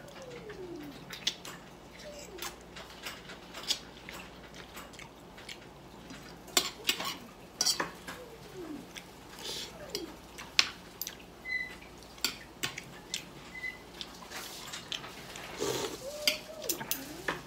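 Metal fork clinking and scraping on a ceramic dinner plate, in many sharp irregular clicks that come thickest in the middle. A few short falling vocal sounds are mixed in.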